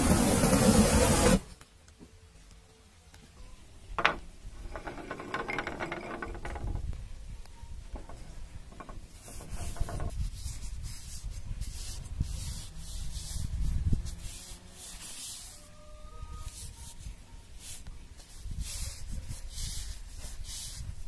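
A gas torch flame hissing loudly, cut off suddenly about a second and a half in. After a sharp click, a paper towel rubs back and forth along the crosscut saw's wooden handle in repeated wiping strokes.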